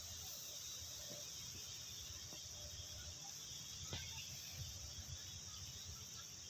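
Faint, steady, high-pitched chirring of an insect chorus, with a low rumble underneath and a few faint ticks.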